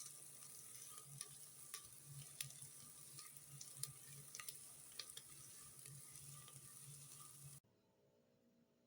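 Food frying in oil in a pan: a steady sizzle with scattered sharp crackles, cutting off abruptly about three-quarters of the way through.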